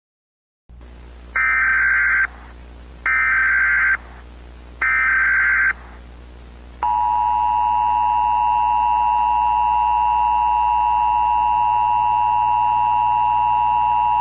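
Emergency Alert System broadcast tones: three short, harsh data bursts of the SAME header, then, about seven seconds in, the steady two-tone EAS attention signal, held to the end. A low steady hum runs underneath.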